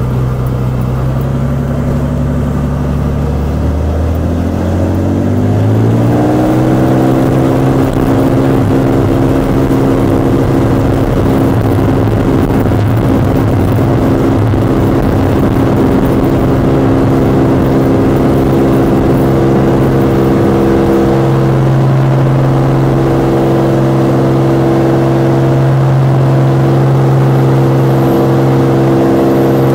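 Light propeller aircraft's engine and propeller, heard from inside the cockpit. The pitch rises over a few seconds as the throttle is opened for takeoff, then holds steady and loud through the takeoff roll.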